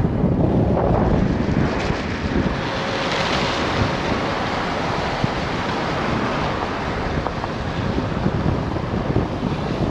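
Wind rushing over the microphone of a moving car, a steady noise with a low rumble.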